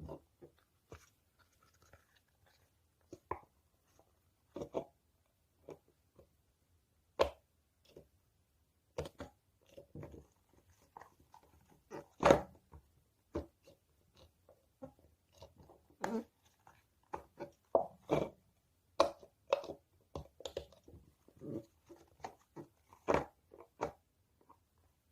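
Soft squishy toys being squeezed and handled up close: irregular short squishes, crinkles and taps with quiet gaps between them, coming thicker in the second half.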